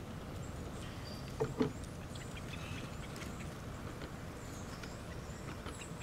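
Small songbirds giving faint, short high chips over a steady low rumble, with two quick soft knocks about a second and a half in.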